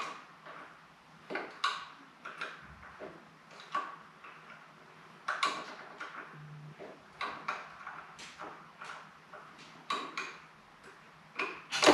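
Irregular light clicks and clinks of hand tools working on the motorcycle's metal parts, one or two a second, over a faint steady hum.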